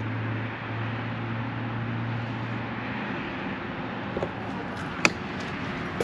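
Road traffic going past: a steady rush of cars with a low engine hum that drops away about halfway through. A couple of small knocks and then one sharp click come near the end.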